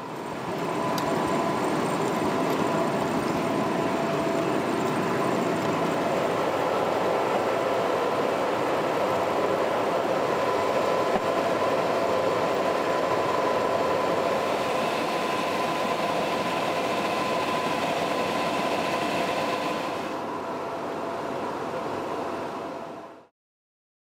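Fendt 718 Vario tractor working a Lely Terra power harrow and Combi-Pneumatic seed drill in the field: a steady machinery drone with a steady whine over it. It eases a little, then cuts off shortly before the end.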